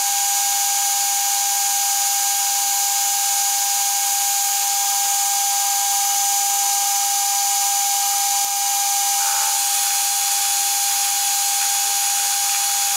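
Metal lathe running under power feed, turning mild steel at a 1.5 mm depth of cut: a steady machine whine with the sound of the cut, holding even, with the cut going through without trouble.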